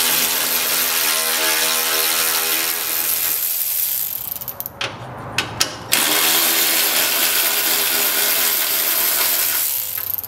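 Power ratchet with a 10 mm socket on an extension spinning out the bolts of a radiator hold-down bracket. It runs twice, for about three to four seconds each time, with a short pause and a few clicks between.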